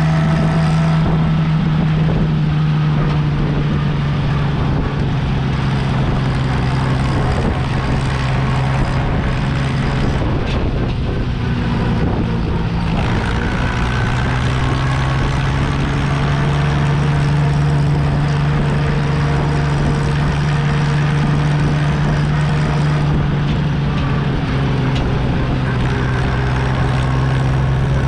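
Farm tractor engine running steadily as the tractor drives down the road, a loud even drone heard from on board just behind the exhaust stack, dipping briefly about eleven seconds in.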